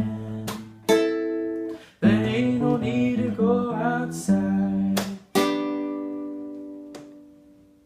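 Strummed acoustic string instrument playing the closing chords of the song, with a short sung line in the middle. The last chord, about five seconds in, rings out and slowly fades away.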